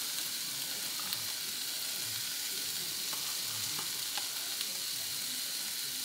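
Egg omelette sizzling steadily on an electric flat-top griddle, with a few faint pops.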